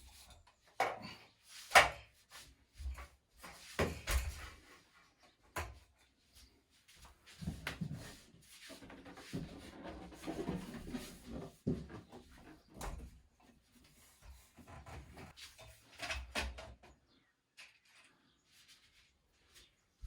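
Irregular wooden knocks, bumps and clatter of IKEA Billy bookcase panels and shelves being handled and fitted, with a sharp knock about two seconds in.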